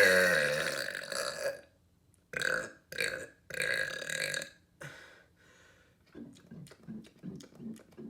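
A long, loud burp whose pitch sinks as it trails off about a second and a half in. It is followed by three shorter rough bursts, then a run of faint quick pulses, about three a second.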